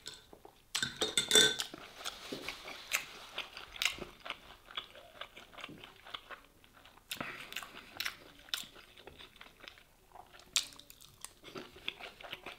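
A person chewing and crunching mouthfuls of shawarma with crisp toasted bread, in irregular crunches, the loudest about a second in.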